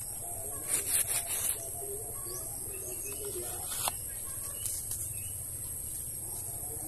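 A paper seed packet rustling and crinkling as it is cut open and handled, with a burst of crinkles about a second in and a sharp click near four seconds, over a steady high-pitched hiss.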